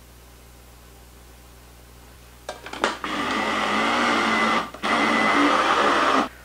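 Small electric mini chopper (a small blender) grinding soaked fine bulgur with ground chicken breast, run in two pulses with a short stop between. A few clicks of the lid and bowl being handled just before it starts.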